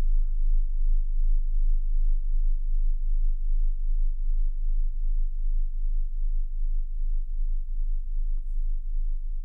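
Blue whale song phrase from an archive underwater recording, played through loudspeakers: a loud, very deep, steady drone at the bottom of hearing, which drops away near the end.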